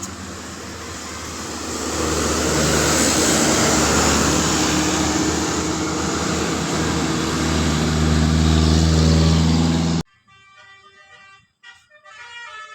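A bus passing close: loud engine and road noise, with steady horn tones that shift in pitch under it, growing louder about two seconds in. About ten seconds in it cuts off suddenly to a much quieter tune of several notes.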